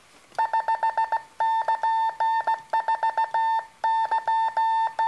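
Morse code sidetone keyed by a semi-automatic bug key (SL170IN single-lever inline): a steady beep tone sent in long runs of rapid, evenly timed dots, made by the key's vibrating dot arm, alternating with longer hand-held dashes.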